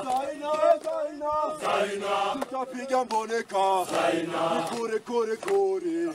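A group of men singing a song together in chorus while dancing, with hand claps: Kilimanjaro porters and guides singing as a crew.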